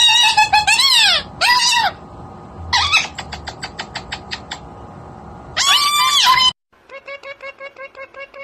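Parrot calling: loud screeching squawks that rise and fall in pitch, a quick run of short clicks at about eight a second, then more loud squawks. After a sudden cut, quieter chirps repeat rapidly.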